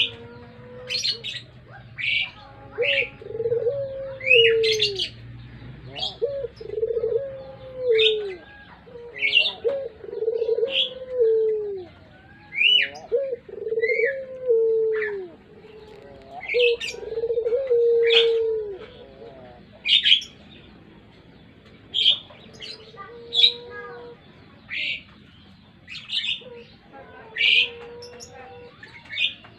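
Puter pelung (Barbary dove) cooing: a run of about ten long, low coos, each dropping at the end, then a few fainter coos near the end. High, short chirps from other small birds run throughout.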